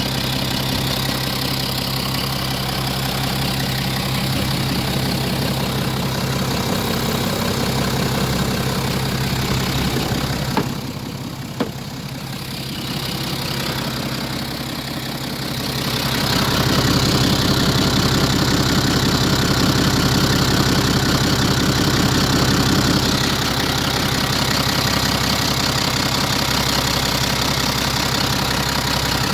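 BMW N57 3.0-litre straight-six diesel engine running hot with a knock, which the owner hears only once the oil reaches about 100°C and below 2000 rpm, with no fault codes and no known cause. The sound drops quieter for a few seconds near the middle, with two sharp clicks, then returns louder.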